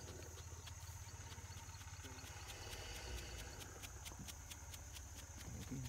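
Faint insects chirping: a steady high trill made of rapid, even pulses, over a low steady hum.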